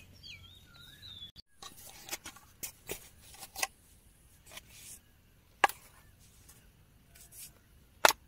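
A few sharp knocks and clacks as metal camping bowls and a wooden cutting board are set down, the two loudest about halfway through and just before the end.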